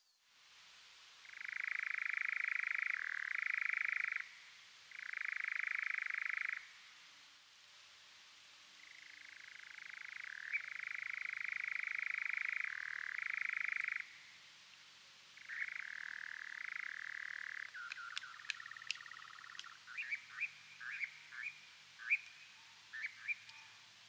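An unidentified animal call, which the uploader offers as a mystery bird: long, even trills or reeling calls of one to three seconds each, repeated with short pauses. Toward the end the calls give way to a quick run of short, sharp chirps and clicks.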